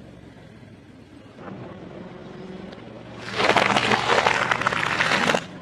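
A car's tyre rolling over and crushing something crunchy: a dense crackling crunch lasting about two seconds, starting about three seconds in and stopping abruptly, over the car's low, steady engine hum.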